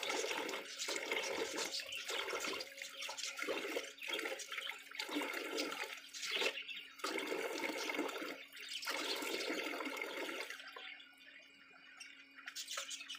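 Water running from an outdoor tap and splashing, with irregular slaps and rubbing as hands scoop water onto a face to wash it. The splashing dies down about ten seconds in.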